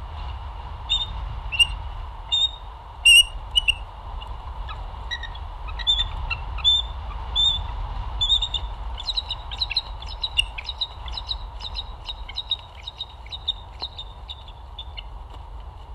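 Bald eagles calling with sharp, high-pitched chirps. There are a few single notes at first, then from about nine seconds in a fast chittering run of notes as the pair mate.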